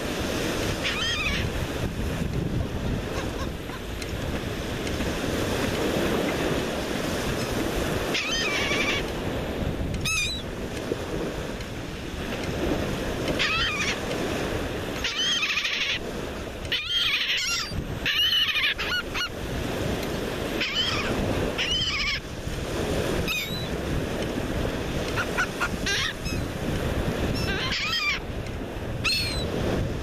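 Laughing gulls calling on and off, short arching calls that come singly and in clusters, over the steady wash of surf breaking on the shore.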